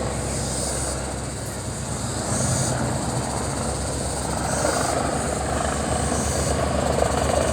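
Helicopter running overhead, a steady drone with the rotor blades beating evenly, the beat growing plainer in the last couple of seconds. It is a firefighting helicopter coming down to take up water for a fire.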